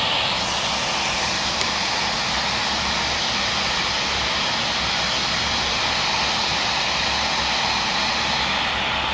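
Holistic Cure Dryer Rp hair dryer blowing steadily on its moist mode: a continuous rush of air with a faint steady whine.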